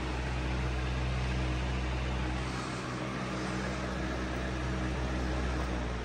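2002 Patton U2-1487 high-velocity fan running: a steady low motor hum under the even rush of air from its spinning blades.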